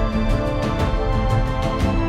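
Background music with held notes and a steady beat, about two beats a second.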